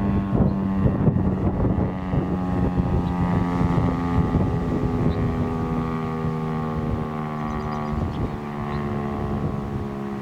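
Federal Signal STH-10 rotating outdoor warning siren sounding a steady, low, buzzy tone during a test. Its pitch sags slightly and it fades a little toward the end. Wind buffets the microphone.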